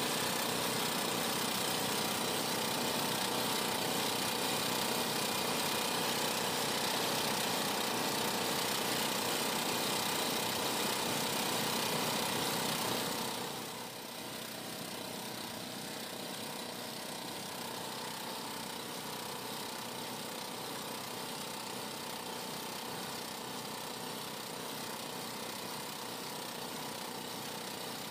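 Outrigger boat's motor running steadily under way, mixed with the rush of wind and water; the sound drops a little in loudness about halfway through.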